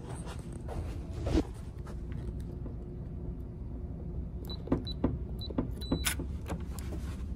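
Electronic keypad door lock beeping as a code is punched in: several short high beeps about half a second apart, then one longer beep as the lock accepts the code, followed by a click.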